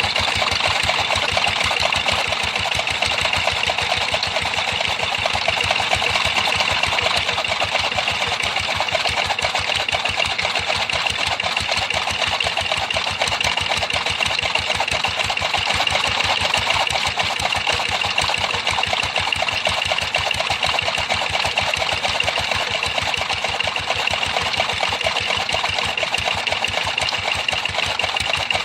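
A small engine or motor running steadily with a fast, even pulse.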